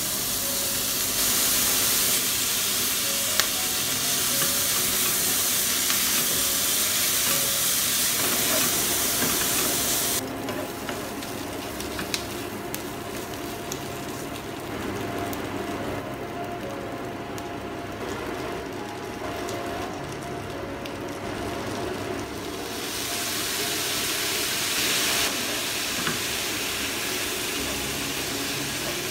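Pressed tofu strips, preserved mustard stem and carrot sizzling in hot oil in a nonstick wok while being stirred and tossed with a wooden spatula. The sizzle is loudest for the first ten seconds, then eases, and swells again briefly about three-quarters through.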